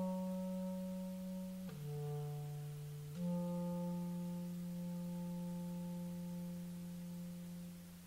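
Solo clarinet sustaining long low notes. It holds one note, drops to a lower one for about a second and a half, then returns to the first pitch and holds it, fading out near the end.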